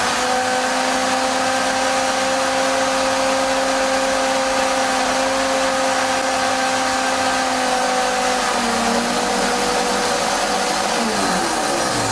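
Revoblend high-performance blender running at high speed, grinding soaked walnuts and probiotics into a paste: a loud, steady motor whine over a rush of noise. Over the last few seconds its pitch drops as the motor slows.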